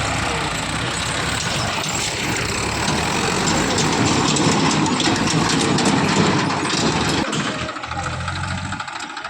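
Tractor diesel engine running, growing louder from about three seconds in, then easing off about seven and a half seconds in.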